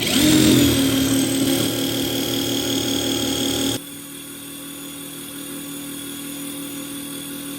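Hyper Tough cordless impact driver spinning up and running freely at full speed with a steady motor whine, no hammering. About halfway through the sound abruptly gets much quieter but keeps running steadily.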